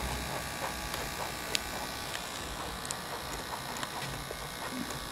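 Loudspeaker connected straight to mains power from a wall outlet, buzzing with a low hum that fades away just after the start. A faint steady hiss with a few sharp ticks follows as the overdriven speaker is being destroyed.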